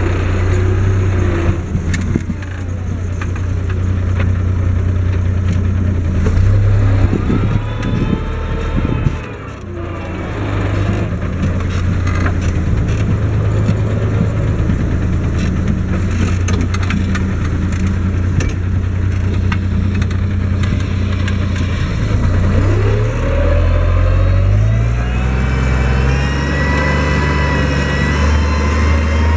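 Case IH 1056 XL tractor's six-cylinder diesel engine running under load while pulling a four-furrow plough through the soil. The engine note shifts in pitch a few times, with a brief dip about nine seconds in and rising whines around then and again after twenty-two seconds.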